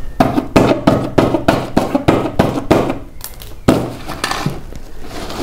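Fingers scratching and tapping at a paper sticker on a poster: a quick, even run of strokes, about four a second, then two louder knocks about two thirds of the way in.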